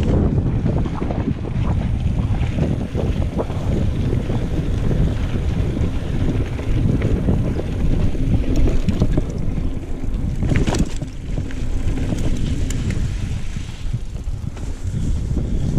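Wind rushing over the microphone while a mountain bike rides down a rough trail, with irregular rattling and bumps, and one sharp knock about eleven seconds in.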